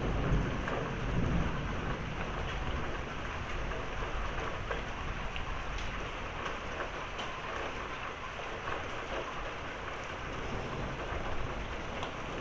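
Steady rain pouring down in a thunderstorm, with a low rumble of thunder dying away over the first couple of seconds.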